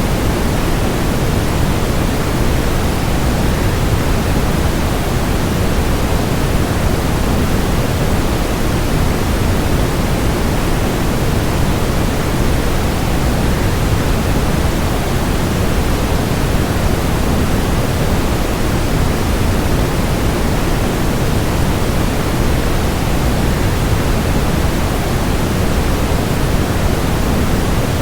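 Waterfall white noise: a steady, unbroken rush of falling water, heaviest in the low end, with no change in level throughout.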